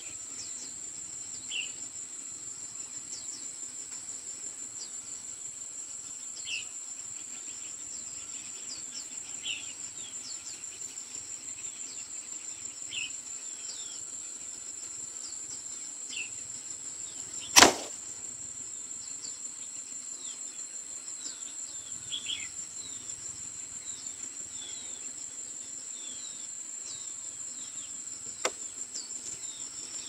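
Steady, high-pitched insect chorus with scattered short chirps. A single loud, sharp knock sounds about halfway through, and a smaller one near the end.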